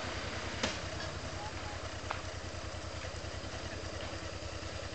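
An engine idling steadily, with a sharp click about half a second in and a fainter click about two seconds in.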